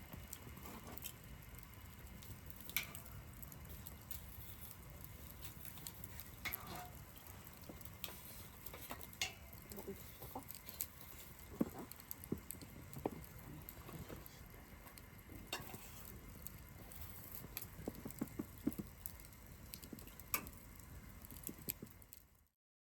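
Rain pattering, irregular drops clicking over a steady hiss, which cuts off abruptly near the end.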